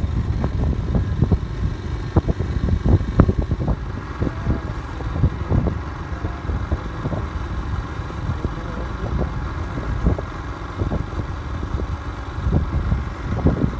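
Motorcycle riding steadily along a road: the engine runs under a low rumble of wind buffeting the microphone, with irregular short knocks.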